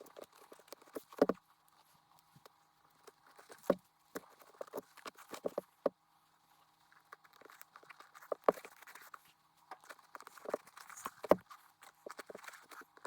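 Irregular clicks, taps and light knocks of hands handling a boot and small plastic buckle parts, with a few louder knocks scattered through.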